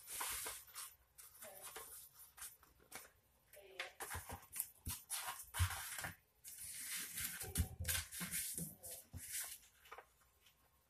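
A sheet of paper rustling and crackling in irregular bursts as it is handled, folded and creased by hand, with a few soft thumps of hands pressing it against the countertop.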